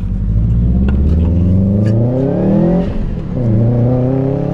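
Turbocharged Subaru flat-four engine pulling up through a gear, its pitch rising, then dropping briefly about three seconds in at a gear change before climbing again. It runs smoothly, the cylinder 3 misfire cured by a new ignition coil.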